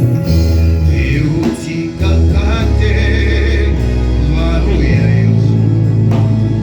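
Gospel worship music: singing over a strong, steady bass line, with a few drum hits.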